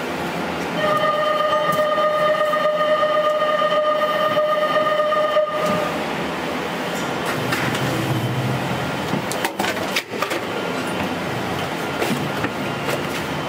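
Ropeway gondola leaving its station, heard from inside the cabin: a steady warning buzzer sounds for about five seconds over the running noise of the ropeway machinery, then a low rumble with a few sharp clacks as the cabin rolls out. The sound is heard through NVIDIA noise removal set to 90%.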